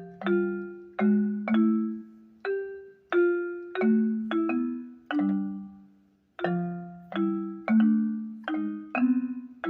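Akai MPK Mini Play keyboard playing one of its built-in preset sounds, a mallet-percussion-like voice: a slow melody of two-note chords, each struck and fading away within about a second.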